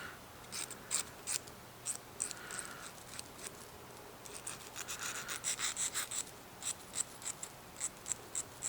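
Short, irregular scraping strokes of a small hand file on a homemade lock pick, smoothing burrs and reshaping the hook's tip; the strokes come quicker for a stretch in the middle.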